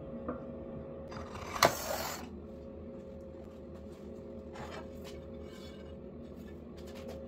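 An aluminum sheet sliding and being set down on a table saw's metal top: a scraping rub with a sharp knock about a second and a half in, then fainter shuffles of the sheet, over a faint steady hum.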